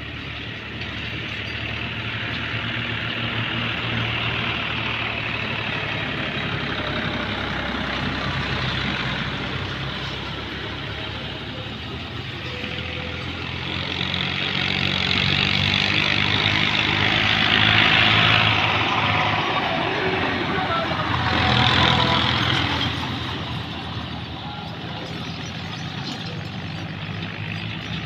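A vehicle engine running steadily, with a rushing noise that swells twice through the middle and then settles back.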